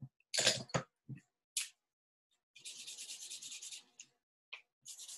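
A felt-tip marker scribbling on paper in quick back-and-forth strokes, once about two and a half seconds in for about a second and again near the end, as the feather shapes are coloured in. Before that, a few short clicks and taps as the marker is picked up and handled.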